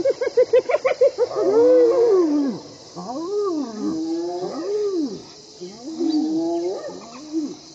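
Spotted hyenas and African wild dogs calling at each other in a standoff. A quick run of short pitched notes comes in the first second, then a string of drawn-out calls that rise and fall in pitch, each under a second long.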